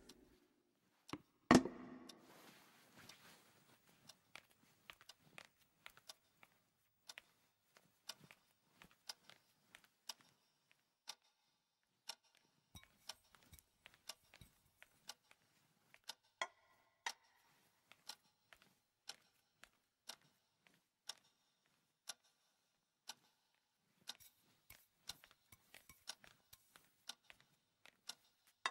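A faint clock ticking about once a second. A single loud thump about a second and a half in is the loudest sound.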